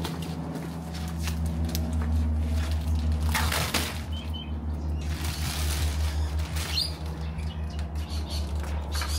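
Plastic wrap rustling and crinkling in swells as it is peeled and pulled off timber shelf panels, with scattered small clicks. A steady low hum runs underneath, and a bird chirps briefly a few times midway.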